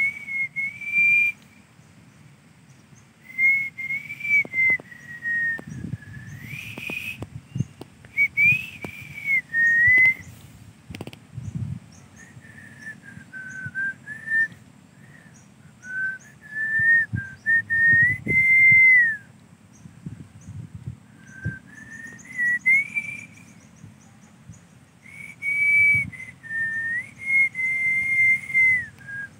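A person whistling a slow tune: a single clear tone wavering and gliding up and down in phrases of a few seconds, with short breaks between them.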